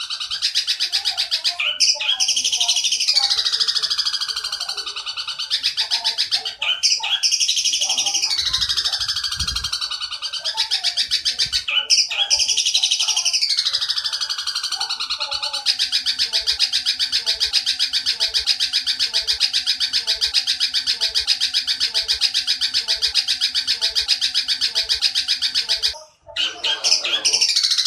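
Long-tailed shrike (cendet) singing a fast, buzzy chatter copied from tree sparrows. High falling sweeps break it every few seconds at first; from about halfway it runs on unbroken, stopping briefly near the end before starting again.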